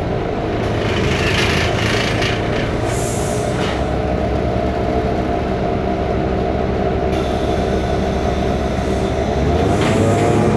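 A BMC Belde city bus's Cummins ISBe turbo diesel droning under way. The engine note settles at the start, holds steady, then climbs again near the end as the bus picks up speed. The engine's sound is the one the uploader calls faulty.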